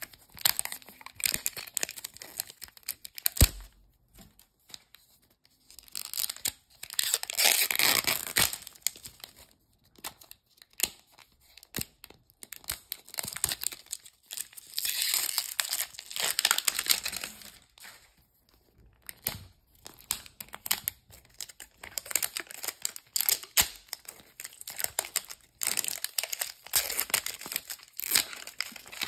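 Printed plastic wrapper being torn and peeled in strips off a Zuru Mini Brands capsule ball, in several tearing passages with crinkling and crackling in between. A single sharp knock about three and a half seconds in.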